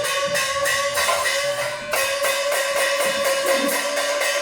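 Chinese opera percussion accompaniment played live: rapid, even strikes, about four a second, over a steady ringing pitched tone.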